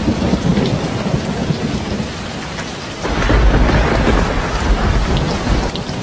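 Heavy rain pouring down and splashing onto standing floodwater, a dense steady hiss. About halfway in, a deep low rumble swells under it and grows louder.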